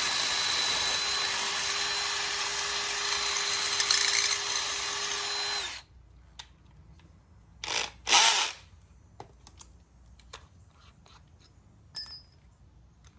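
Electric drill running steadily as a small bit bores out a hole in aluminum, then stopping abruptly about six seconds in. Two short loud bursts of noise and a few light clicks follow.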